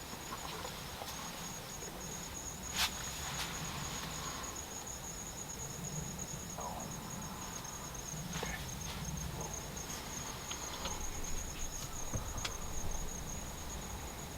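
Insects chirping in a steady, high, pulsing trill, with a few sharp clicks over it, the clearest about three seconds in.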